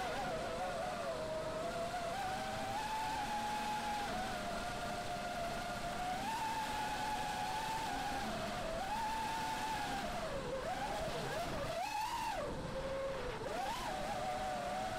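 The brushless motors and propellers of an FPV racing quadcopter (Emax RS2205 2600KV motors, DAL 5040 three-blade props) whining in flight. The pitch wanders up and down with the throttle, with quick dips and surges near the end, over a steady rush of air.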